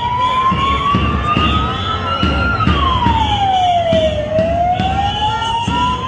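A siren wails in slow sweeps: its pitch climbs for about two and a half seconds, drops for nearly two, then climbs again, over the noise of a street march.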